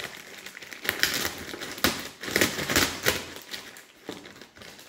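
Plastic mailer bag crinkling and rustling as a small knife slits it open along the top, in irregular crackly bursts that are busiest in the middle.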